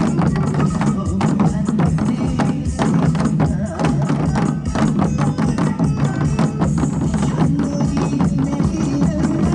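Music with a steady drum beat and percussion.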